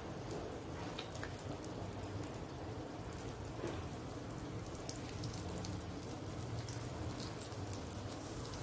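Paneer-and-potato kofta balls deep-frying in oil on a low flame: a quiet, steady sizzle with scattered small crackles.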